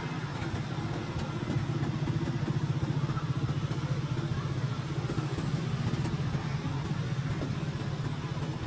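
An engine idling steadily, a low pulsing hum that holds even throughout.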